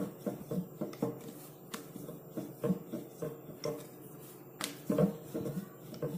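A rolling pin rolling out stiff dough on a marble board, making soft, irregular knocks and clicks several times a second, with a few sharper clicks.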